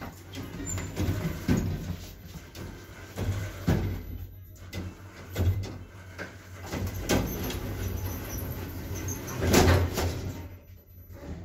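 Lift car's automatic sliding doors closing, among repeated knocks and thumps. The loudest thump comes near the end, about when the doors shut.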